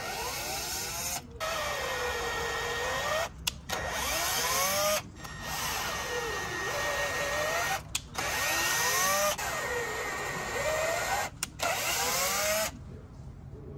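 Milwaukee cordless drill pre-drilling and tapping 8-32 screw holes in a fiberglass speaker pod. The motor whine speeds up and slows down with the trigger, cuts out briefly about five times as it stops and starts again, and stops for good near the end.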